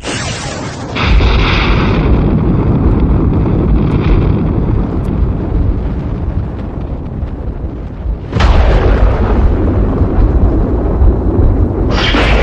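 Thunder: a clap that breaks at the start and swells a second later into a long rolling rumble, then a second sharp crack about eight seconds in and a third just before the end, each trailing off in deep rumbling.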